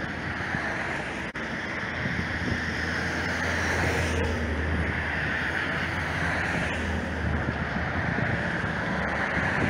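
Wind rushing over the microphone, over a steady low rumble of distant vehicles.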